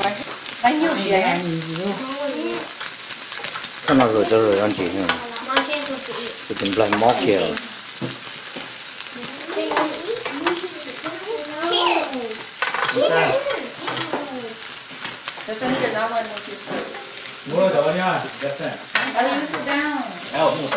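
Meat and shrimp sizzling on a tabletop barbecue grill plate, a steady frying hiss with small crackles, under people talking in the background.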